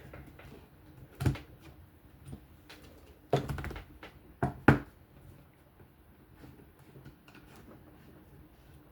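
A few hard knocks and clatters as sharpening plates are handled and swapped on a tabletop: a knock about a second in, a longer clatter around three and a half seconds, and a sharp knock just before five seconds.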